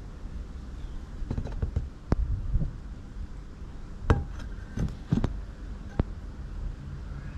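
A metal frying pan being handled and turned over, knocking and clinking lightly several times, sometimes in quick little clusters, over a steady low background rumble.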